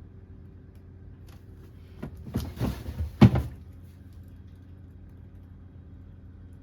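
Household handling noise about two seconds in, a short rustle and clatter that ends in one sharp knock, over a steady low electrical hum.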